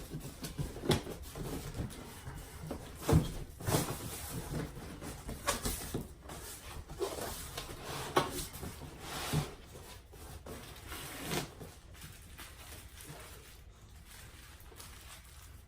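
A shipping box and its packaging being handled and opened: irregular rustling, scraping and knocks, with the loudest knock about three seconds in, growing sparser toward the end.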